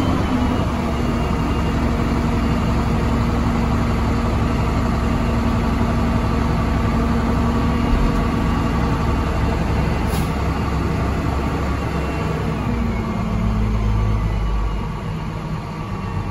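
2013 Hino 268's six-cylinder turbo diesel running at raised revs with the PTO engaged, driving the hoist that lifts the dump body, heard from inside the cab, with a faint high whine over it. About three-quarters of the way through, the engine drops back toward idle.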